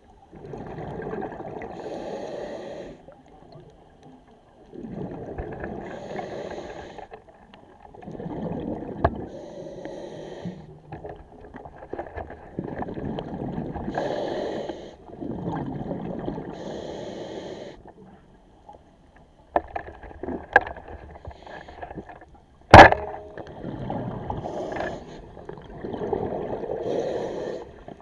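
A diver breathing underwater, one breath every few seconds, each a 2–3 second rush of air and bubbling. One sharp knock about 23 seconds in is the loudest sound.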